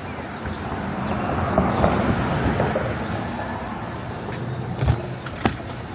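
A motor vehicle moving, its engine and tyre noise swelling to a peak about two seconds in and then fading, with two short clicks near the end.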